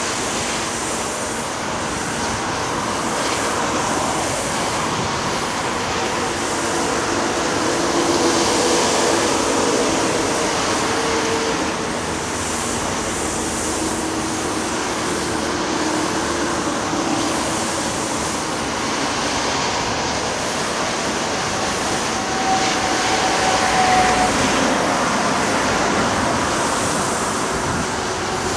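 Steady mixed roar of diesel earthmoving machinery and passing vehicles, with faint engine tones rising and falling now and then.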